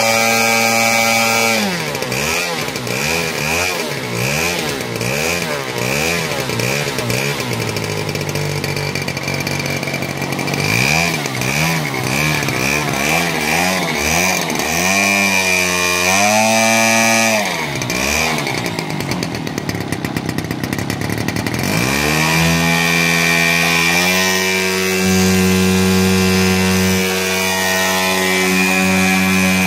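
Super Tigre model aircraft engine running on the ground, its revs swinging up and down in quick repeated surges, then going rough and dense for a few seconds before settling into a steady run for the last several seconds. Running well.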